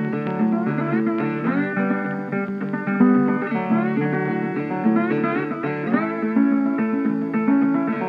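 Background music: an instrumental tune led by plucked guitar.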